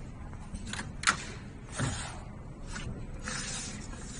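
Handling noise at an automatic sewing machine's template frame: two sharp clicks about a second in, then short hissing rustles.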